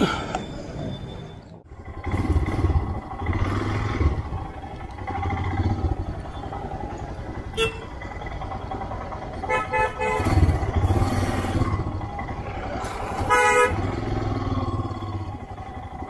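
Motorcycle engine running under way with wind and road noise in town traffic. A vehicle horn toots briefly about ten seconds in and again a few seconds later.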